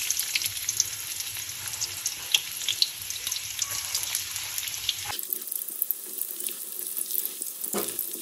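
Chopped onions frying in hot oil in a kadai: a steady sizzling hiss with many small scattered crackles and pops.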